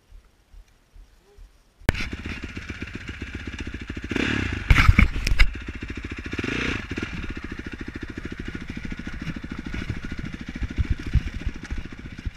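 Honda CRF450R's single-cylinder four-stroke engine idling with a fast, even pulse, which comes in abruptly about two seconds in. It is revved up with the throttle a few seconds in and again a little later, with a few short blips near the end.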